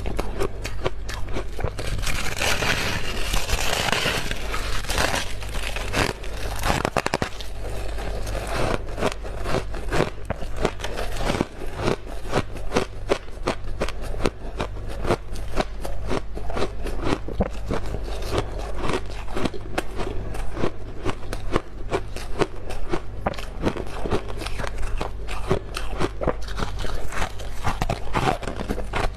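Freezer frost crunching in dense, rapid crackles as it is bitten and chewed close to the microphone, over a steady low hum.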